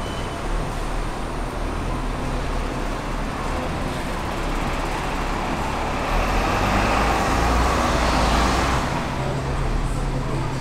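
City street traffic with a steady low rumble. A vehicle passing on the road swells louder between about five and nine seconds in, then fades.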